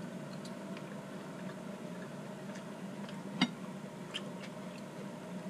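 Knife and fork clicking and scraping on a plate while cutting steak: scattered light clicks, with one sharper click about three and a half seconds in, over a steady low hum.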